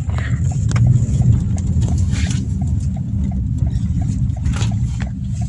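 Steady low rumble of a car's engine and road noise heard from inside the cabin, with a few faint clicks.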